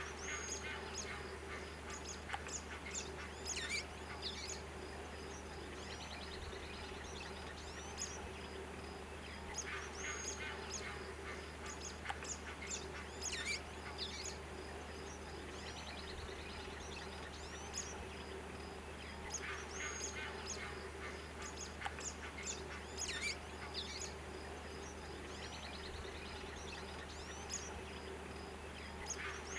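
Bird calls in short clusters of chirps and rising whistles, the same pattern coming back about every ten seconds as in a looped nature recording, over a steady low hum.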